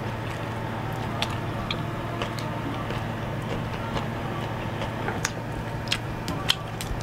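Eating by hand: scattered small clicks and smacks as fingers pick at and tear fried duck and the mouth chews, over a steady low hum.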